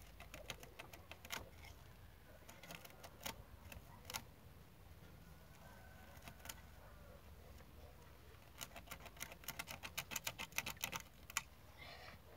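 Something being cut by hand: scattered sharp clicks and scrapes, then a quick run of clicks, about seven a second, near the end.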